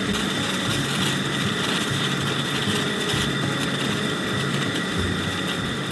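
Propane camp-stove burner running at full flame under a pot of water at a rolling boil: a steady hiss of the flame with the water bubbling.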